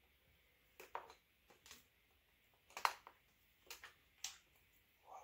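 Hands working small parts, hoses and connectors in an engine bay: about seven faint, scattered clicks and taps over five seconds, the loudest about three seconds in.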